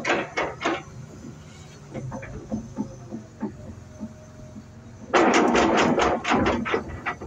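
Hitachi ZX250LCN-3 crawler excavator's diesel engine running steadily while rocks knock and clatter in and against its steel bucket as it scoops and lifts a load of stone. About five seconds in comes a loud, dense clatter of rocks lasting under two seconds.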